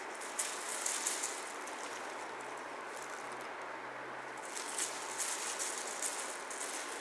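Light crinkling rustles and ticks as kittens bat at and tussle with a cat wand toy hung with shiny foil streamers, in two spells, near the start and again from about five seconds in, over a steady hiss.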